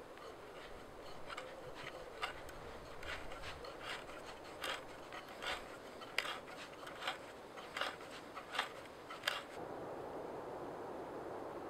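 A hand tool scraping and cutting into wood in a series of short strokes, roughly one every half-second to second. These stop near the end, leaving a steady outdoor hiss.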